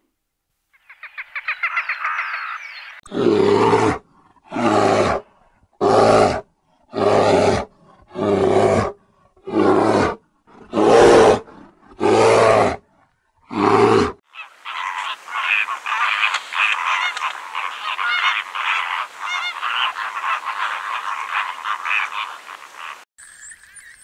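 Brown bear vocalising: nine loud, deep growls about a second apart, then a dense rattling, croaking sound for about eight seconds.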